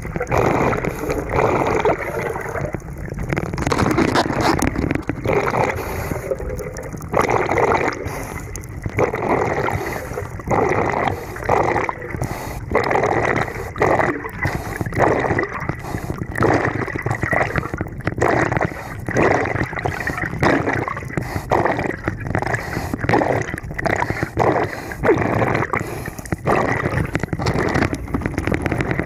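Gurgling of a scuba diver's exhaled bubbles heard underwater, in a run of irregular bursts.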